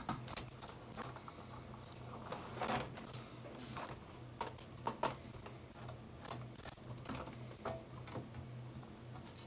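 Irregular small clicks and taps of a keyboard's plastic and aluminium parts being handled as its removable wrist rest, held by one last screw, is worked free. A low steady hum runs underneath.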